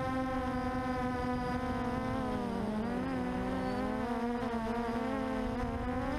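QAV400 quadcopter's brushless motors and propellers buzzing in flight, a steady tone with a row of overtones. About two seconds in the pitch dips and the motors' tones split apart and waver as the throttle changes, then they draw back together near the end.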